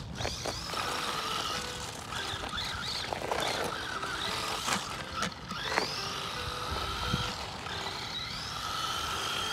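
A Funtech 1:18 RC truck's small electric motor whining as it drives, rising in pitch several times as it speeds up, with tyre noise over gravel and pavement.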